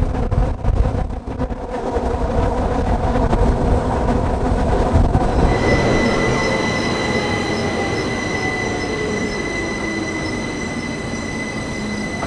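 Rhaetian Railway InterRegio train heard through an open window, with wind buffeting the microphone at first. About halfway through, as it runs slowly into the station, a high, steady squeal sets in and the lower running hum slowly falls in pitch.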